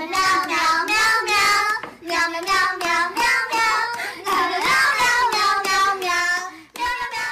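A high-pitched voice singing in short phrases, with brief breaks between them.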